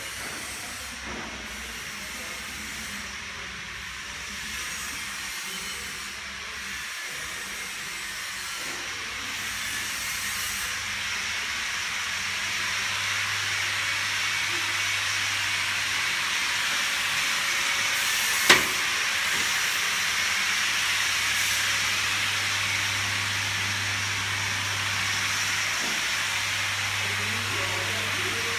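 Steady rushing hiss with a low hum underneath, slowly getting louder; a single sharp click about 18 seconds in.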